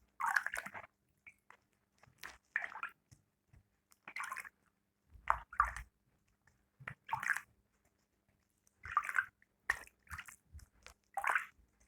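An orange being washed by hand in a small bowl of water: short, irregular splashes and wet squishes as it is rubbed and turned.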